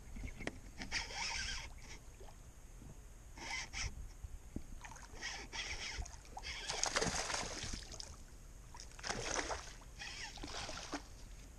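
Small hooked wiper (hybrid striped bass) splashing at the water's surface while being reeled in, in short irregular bursts every second or two.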